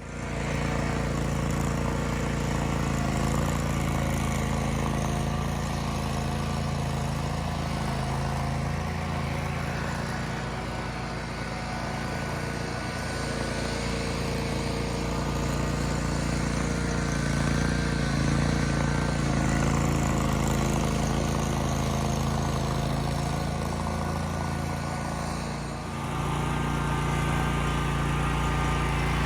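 Small gasoline engine of lawn equipment running steadily, with a brief dip in level near the end.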